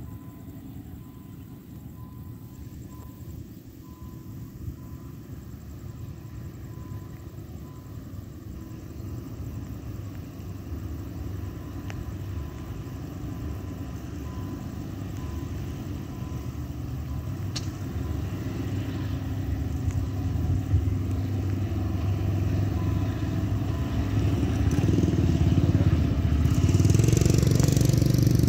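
Hitachi diesel-electric locomotive hauling a rapid passenger train, its engine running with a steady low drone that grows louder as it approaches. A higher rushing noise joins near the end.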